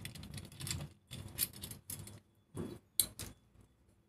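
Clicks and rattles of a washing-machine motor's capacitor being unplugged and taken out: metal spade terminals and plastic knocking and scraping by hand. The sharpest click comes about three seconds in.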